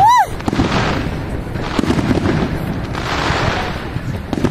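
Fireworks display: aerial shells bursting, with a steady rumble of booms and crackling. A short pitched sound rises and falls right at the start.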